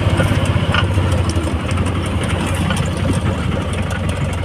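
Auto-rickshaw's small engine running steadily with a fast, even low pulse, heard from inside the open passenger cabin.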